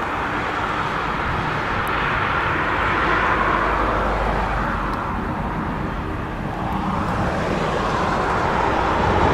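Airbus A380 landing on a wet runway: a steady rushing noise of jet engines and spray that grows louder toward the end.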